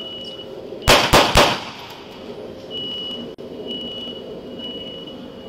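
Three gunshots in quick succession, about a quarter second apart, about a second in. A high steady beep sounds on and off around them.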